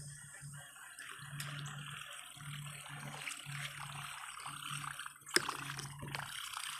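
Whopper Plopper topwater lure being reeled across the surface, its spinning tail churning and gurgling the water. A sharp click sounds a little past five seconds in.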